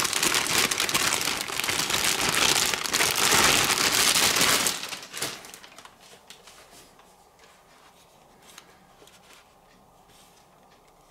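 Packaging crinkling and rustling as the headphones are taken out of their wrapping, loud for about the first five seconds. It then dies down to faint scattered clicks and taps of handling.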